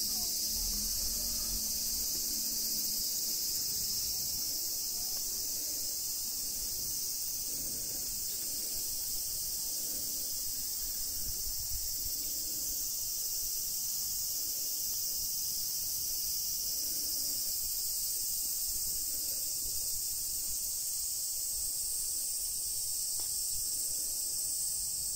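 Insects chirring in a steady, unbroken high-pitched chorus that sounds almost like a hiss.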